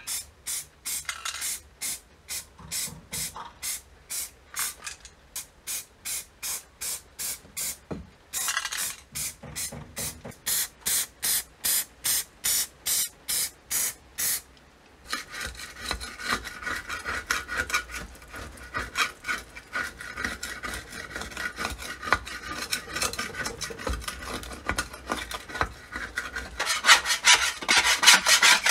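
Rhythmic hand-abrasion strokes, as in filing or scrubbing rust off metal, about two strokes a second with a brief pause about eight seconds in. From about halfway, the strokes turn into faster, denser rubbing with a faint metallic ring, growing louder near the end.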